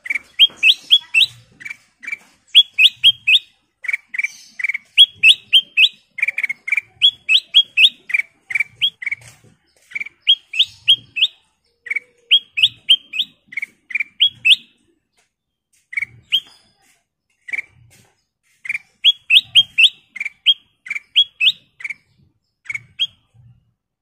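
Ruby-throated bulbul (kutilang emas) singing: quick, clear, upward-sweeping notes in bursts of two to four, repeated over and over with short pauses, stopping shortly before the end.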